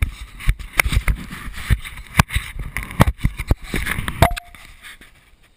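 Handling noise on a GoPro camera: a rapid, irregular run of knocks, thumps and rubbing against the housing as it is gripped and moved. The noise stops about four seconds in.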